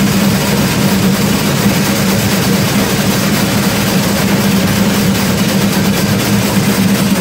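Many large Wolfauslassen cowbells (Wolfsglocken) swung in unison by a group of men, clanging together in a loud, unbroken din with a steady low ringing hum beneath it.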